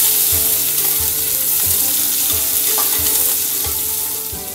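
Sliced onions, cashews and whole spices sizzling in hot oil in an aluminium pressure cooker as they sauté, turned now and then with a metal perforated ladle. The sizzle eases off a little near the end.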